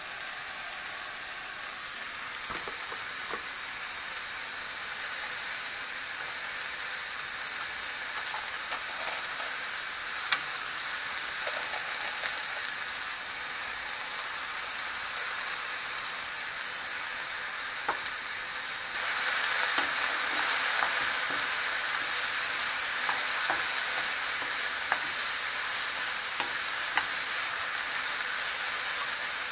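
Sliced king oyster mushrooms, carrots and chives sizzling in a hot frying pan while being stirred with a wooden spatula, with a few light knocks. The sizzle gets louder about two-thirds of the way through.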